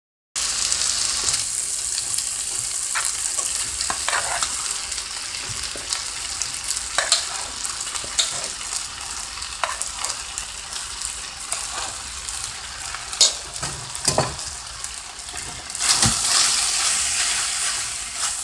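Diced chicken sizzling in hot oil in a wok, stirred with a wooden spoon that scrapes and knocks against the pan; cooked rice is tipped in and stirred through. The sizzle is a steady hiss broken by scattered clicks, and it grows louder near the end.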